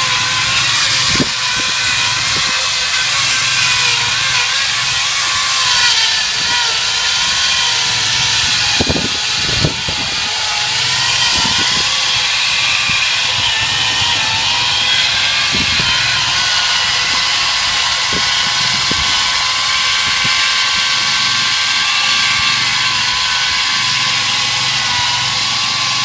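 Power saw running steadily with a high whine as it cuts an opening through a chicken-house wall, with a few brief knocks about nine to ten seconds in.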